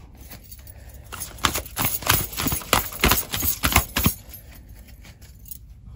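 Tarot cards being handled, drawn and tapped on the table: an irregular run of sharp clicks and taps for about three seconds, then quiet rustling.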